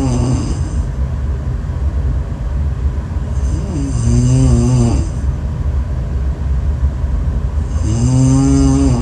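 A person snoring: long pitched snores about four seconds apart, one about three and a half seconds in and one near the end, over a steady low hum.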